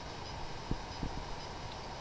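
Steady background hiss, with two faint soft taps about three-quarters of a second and a second in: a dry-erase marker touching a whiteboard while writing a small number.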